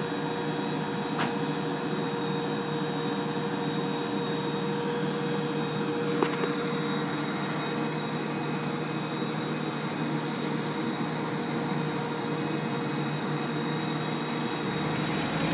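Flatbed tow truck's engine and hydraulic system running steadily, a constant hum with a high whine, while its tilted bed is used to unload a vehicle. There is a sharp click about a second in and a light knock about six seconds in.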